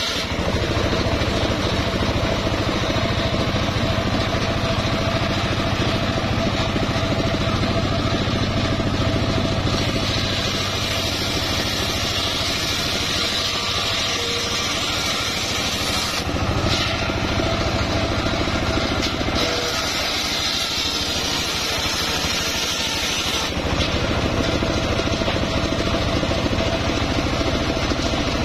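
Homemade engine-driven circular saw bench ripping mahogany planks. The engine runs steadily under the large spinning blade, and the cutting noise changes several times as planks are fed through and drawn back.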